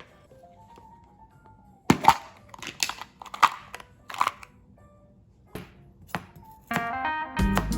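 A series of sharp, irregularly spaced knocks and clicks, like utensils striking hard kitchen surfaces. Background music with plucked guitar comes in near the end.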